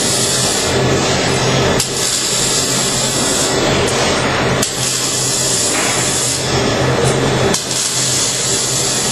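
Robotic MIG welder's arc crackling and hissing steadily over a low buzz, with brief breaks about every three seconds.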